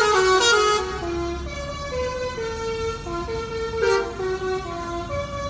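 A bus's basuri telolet horn playing a melody, a quick run of steady horn notes stepping up and down in pitch. It is loudest for the first second, then carries on softer.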